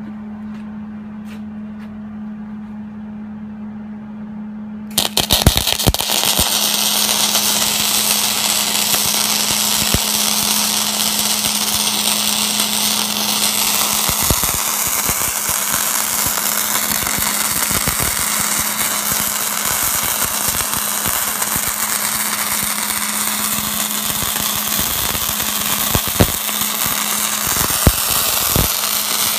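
Miller Millermatic 211 wire-feed welder on 240 volts striking its arc about five seconds in, after a steady hum. The arc then crackles and sizzles without a break as it lays a bead on rusty steel plate, with a couple of sharper pops near the end.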